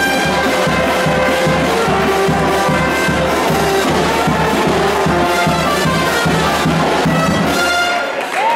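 Live music playing a tune over a steady beat, dipping briefly near the end.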